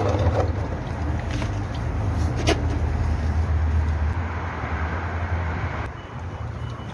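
Engine idling with a steady low hum that drops away about six seconds in; a single sharp click about two and a half seconds in.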